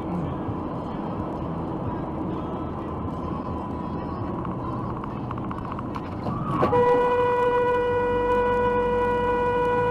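Steady road noise from a moving car, then about two-thirds of the way in a car horn sounds and is held on one steady, loud note.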